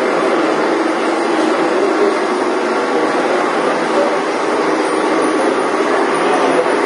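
Metal lathes running in a machine shop: a loud, steady machine hum with a hissing noise over it that does not change.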